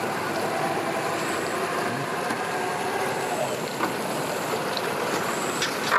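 Steady hum of idling boat outboard motors, even and unbroken, with a few faint steady tones.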